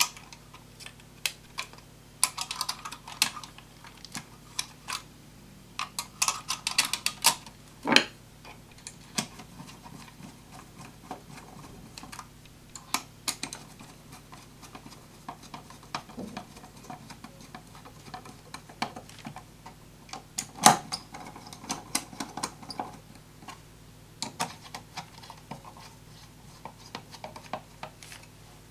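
Irregular clicks, taps and short clattering runs of small plastic and metal parts being handled, from hands working on an Intel NUC mini PC during a memory install.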